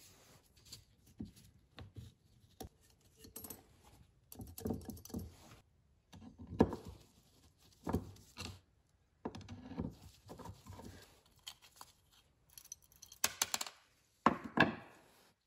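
Small metal carburetor parts and a screwdriver clicking, tapping and scraping against the carburetor body and a wooden workbench, with gloves rustling, during a carburetor rebuild. A quick run of clicks and a knock come near the end.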